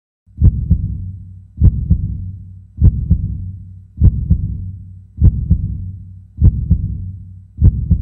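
Heartbeat sound effect: a deep double thump, lub-dub, repeating evenly about every 1.2 seconds, seven times, each beat trailing off.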